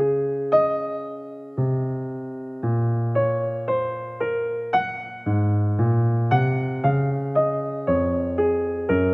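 Background piano music: a gentle tune of struck notes and chords, each fading away before the next, slower at first and then about two a second.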